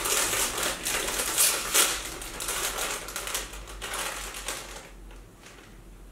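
Foil Doritos crisp bag crinkling and crackling as it is pulled open and handled, dense and loud at first, then dying away after about five seconds.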